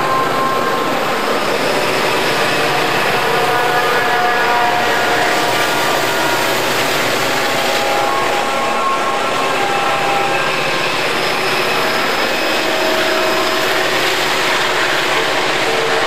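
Freight train rolling past: a steady loud rumble with short squealing tones that come and go.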